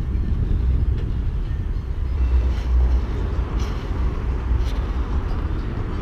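Riding noise from a 2018 SE Bikes Big Flyer BMX bike rolling along pavement: a steady low rumble of tyre and wind noise on the microphone, with a few faint ticks.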